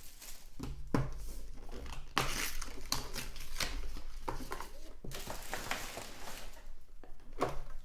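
Plastic wrapping crinkling and tearing as a sealed box of trading cards is opened, with irregular rustles and sharp clicks.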